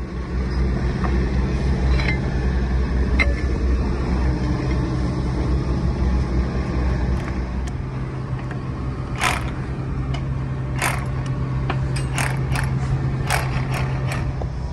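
Milwaukee M18 Fuel 1-inch SDS Plus cordless rotary hammer running steadily with a chisel bit, chipping concrete. A run of sharp clicks and knocks comes in over the steady hammering in the second half.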